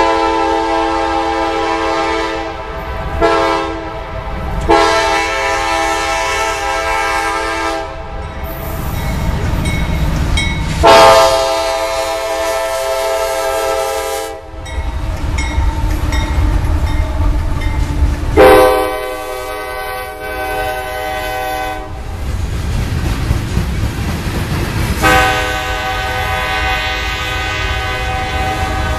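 Horn of a freight train led by a CSX GE AC6000CW diesel locomotive, sounded in about six blasts: a long one, a short one, then four long ones of three to four seconds each. Low train running noise fills the gaps between the blasts.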